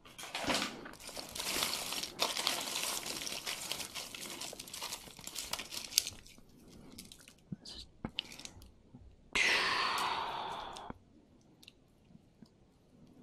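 Crinkling, rustling handling noise as a pile of costume jewelry is picked through by hand, full of small clicks, for the first half. After a few scattered clicks comes one louder rustle lasting about a second and a half near the end.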